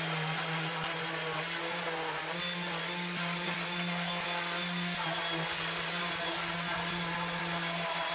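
Electric motor of a power tool running at a steady speed, giving a constant hum with only slight shifts in pitch.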